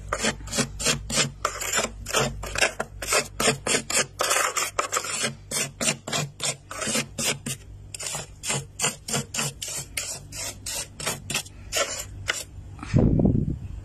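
Fingers scraping at thick, flaky freezer frost in quick rasping strokes, about three a second. A louder, deeper bump comes near the end.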